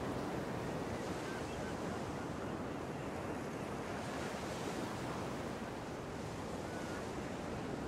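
Steady wash of ocean surf, a continuous noise of waves breaking over a reef.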